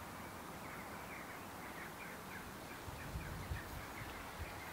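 Faint open-air ambience with a small bird calling in a quick run of short, falling chirps, and a few low thuds about three seconds in.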